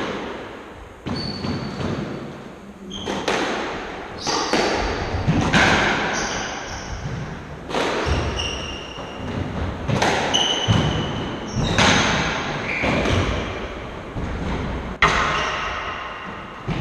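Squash rally: the ball cracked by racquets and smacking off the court walls, a sharp hit every second or two with a hall-like echo, and shoe soles squeaking briefly on the wooden floor between the hits.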